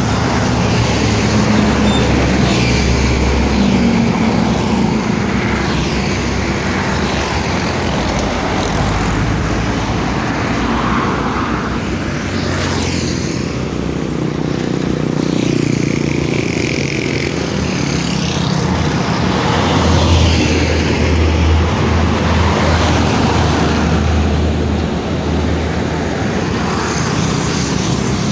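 Road traffic close by: large vehicles passing one after another, with steady engine and tyre noise that swells as each one goes past.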